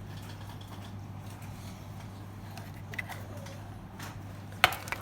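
Light clicks from handling small objects, one faint about three seconds in and a sharper one near the end, over a steady low hum.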